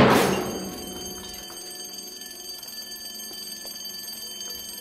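A sudden loud hit that dies away over about a second, then a steady high ringing of several tones held until near the end: a film soundtrack stinger.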